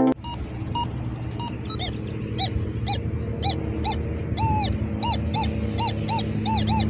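A bird or other animal calling over and over in short arched notes, about two a second, over a steady low hum.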